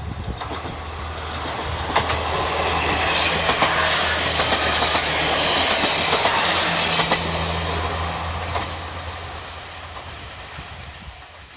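A KiHa 47-series diesel railcar train passes by, its diesel engine droning steadily under the clickety-clack of wheels over rail joints. It grows louder to a peak about halfway through and then fades as it moves off.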